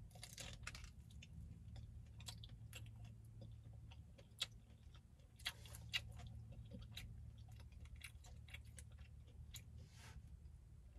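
A person chewing food close to the microphone: faint wet mouth clicks and smacks, with a few sharper clicks near the middle, over a steady low hum.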